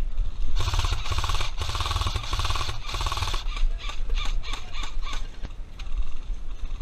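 Airsoft electric rifles firing full-auto, a fast mechanical rattle of the gearboxes cycling, in three or four strong bursts over the first three seconds and then in shorter, weaker bursts.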